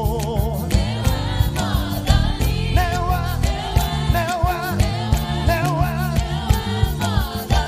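Gospel song: singing with vibrato over a band with a steady drum beat and bass.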